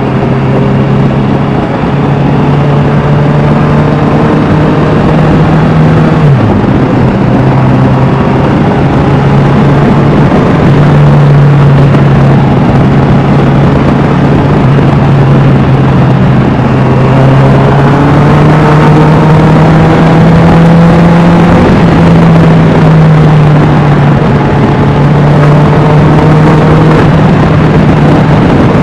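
Honda CBR650R inline-four with an Austin Racing aftermarket exhaust, under way and running loud at fairly steady revs. Its note slowly rises in places and dips sharply for a moment about six seconds in, as at a gearchange or throttle lift.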